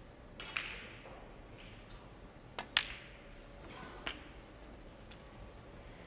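Snooker balls clicking during a break: a few sharp clicks of cue tip on cue ball and ball on ball. The loudest is a pair of clicks a fraction of a second apart in the middle.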